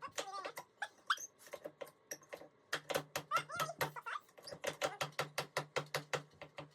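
Pneumatic de-nail gun firing in rapid clattering bursts, driving old nails out of timber, with a low hum under each burst. A few short high squeaks come in the first couple of seconds.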